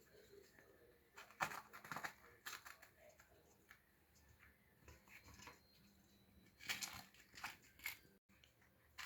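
Near silence, with a few faint, short handling noises: small clicks and rustles of kitchen work, in two clusters, one a second or two in and another near the end.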